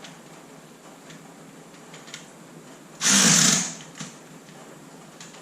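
Impact wrench hammering in one short burst of under a second, about three seconds in, followed by a single click.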